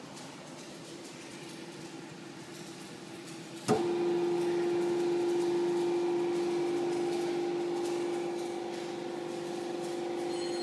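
YKT-100T C-frame hydraulic press's pump motor switching on with a sharp click a little under four seconds in, then running with a steady hum.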